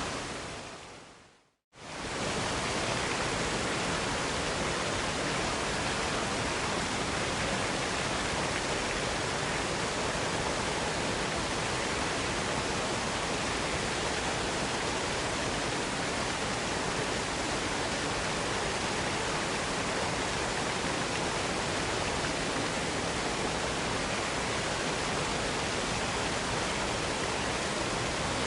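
Waterfall rushing in a steady, even roar of falling water. In the first second and a half it fades away to silence, then cuts back in suddenly at full level, the join of a looped recording.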